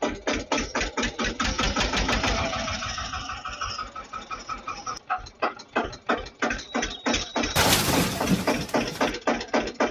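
Tractor engine chugging steadily at about five beats a second. About three-quarters through, a loud crash noise lasting a second or so as the toy tractor tips over.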